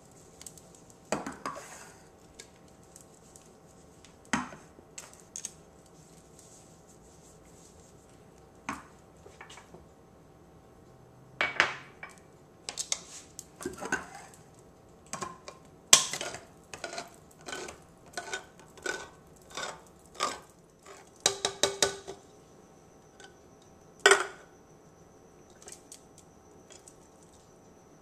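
Cans of mackerel being opened with a hand can opener and emptied into a plastic bowl: a string of separate metal clicks and knocks, with a quick run of clicks about three quarters of the way through.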